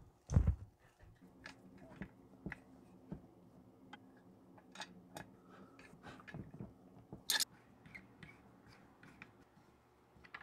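Light metallic clicks and taps of a hand tool and engine parts as a chainsaw cylinder is bolted back down onto its crankcase, with a couple of louder knocks, one just after the start and one about 7 s in, over a faint steady hum.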